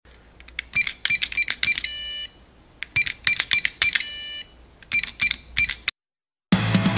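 Intro sound effect of rapid clicks and short beeps in three runs. The first two runs each end in a bright, bell-like ding. After a brief gap, rock music comes in near the end.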